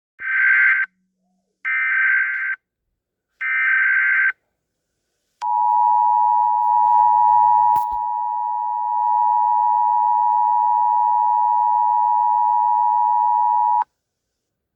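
Emergency Alert System broadcast tones: three bursts of SAME header data, each about a second long, then the two-tone EAS attention signal (853 and 960 Hz) held steady for about eight seconds and cutting off sharply. A click breaks in partway through the attention tone.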